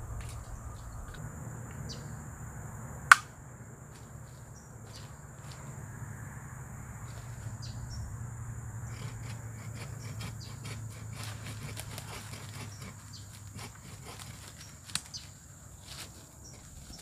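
Woodland insects buzzing steadily while a green sapling is cut at its base with a hand blade: one sharp snap about three seconds in, then a run of small irregular cracks and clicks in the second half.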